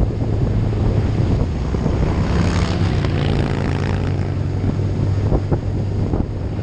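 Vehicle engine running at a steady cruise with heavy wind noise buffeting the microphone. A louder rushing swell comes and goes about two to four seconds in.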